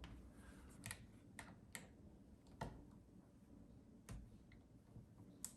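Faint, irregular small clicks and ticks as a magnetic precision screwdriver unscrews a small screw from a laptop's plastic bottom case, about six clicks spread over several seconds.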